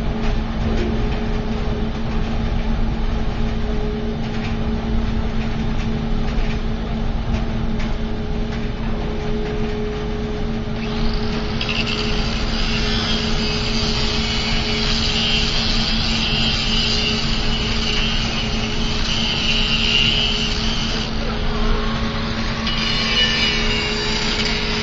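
Sawdust burner machinery running: a steady motor hum with a constant tone over a low rumble. About eleven seconds in, a loud high hissing rush with a faint whine joins in. It eases for a moment and returns near the end.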